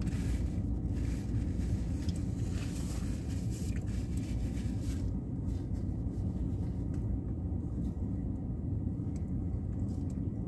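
Steady low vehicle rumble heard from inside a parked car's cabin, with paper wrapper crinkling for about the first half.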